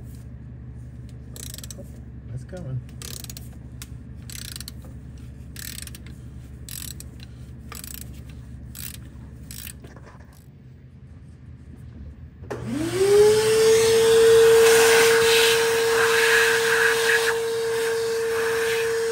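Scattered light clicks and knocks of metal tools being handled. About two-thirds of the way in, an electric motor spins up quickly and runs on at a steady high hum with a hiss over it.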